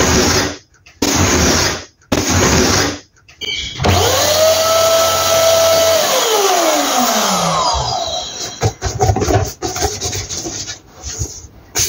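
Electric balloon pump blowing air into a latex balloon: three short bursts, then a longer run whose motor whine rises, holds and winds down. After that comes irregular rubbing on the balloon's rubber.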